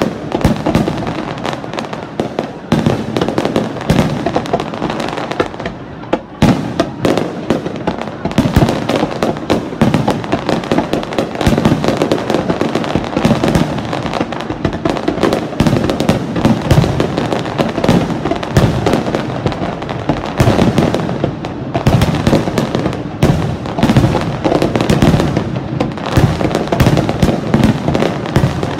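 Finale barrage of aerial fireworks shells: a rapid, unbroken run of bursting bangs and crackle, several a second.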